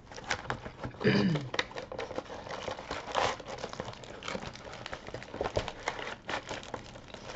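Flat cardboard kit boxes being slid, lifted and handled, with irregular rustling, scraping and crinkling of packaging and a few light knocks.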